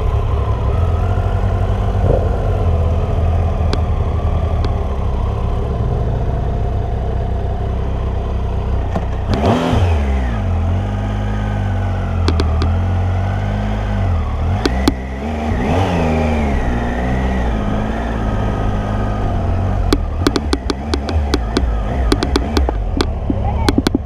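Triumph motorcycle engine running at low speed, its revs rising and falling about ten seconds in and again around sixteen seconds. A run of sharp clicks comes in over the last few seconds.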